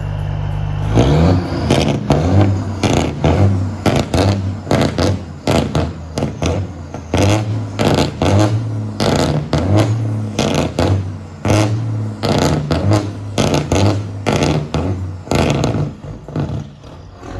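Diesel engine of a stationary semi truck revved hard over and over, blowing black smoke. It idles for about a second, then is blipped up and dropped back roughly every second, with a crackling exhaust.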